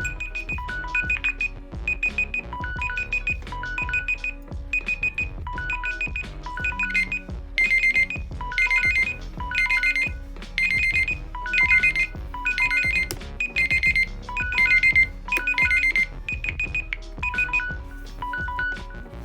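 Mobile phone ringtone melody playing: a looping pattern of bright electronic beep notes over a beat, louder through the middle.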